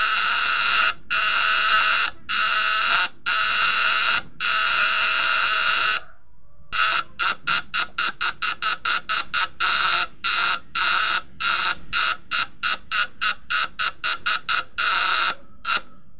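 Vibrating platinum contact breaker of a battery-powered homemade fish-shocker coil buzzing harshly as it makes and breaks the coil's current to step up the voltage. The buzz keeps cutting out briefly, stops for about half a second around six seconds in, then stutters on and off several times a second.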